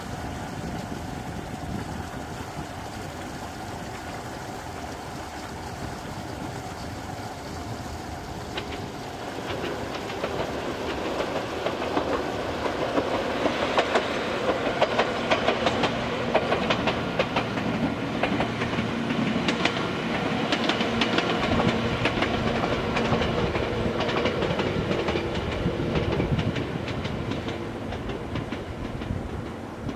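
Omi Railway 800 series two-car resistance-controlled electric train approaching and passing, with its motors humming and its wheels clicking over the rail joints. The sound grows from about ten seconds in, is loudest around the middle, and eases off near the end as the train moves away.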